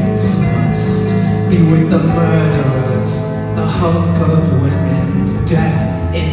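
A live song: a man singing into a handheld microphone over a recorded backing track.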